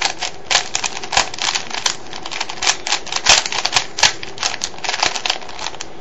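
A 3x3 Rubik's cube's plastic layers turned quickly by hand: a rapid, irregular run of clicks and clacks, the move sequence that places one edge piece in a blindsolve.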